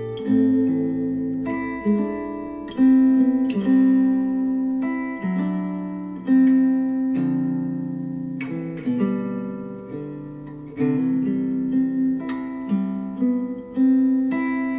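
Acoustic guitar music played back through KEF LS50 Meta bookshelf speakers driven by a NAD C 338 amplifier. Plucked and strummed chords strike every second or two and ring on between strikes.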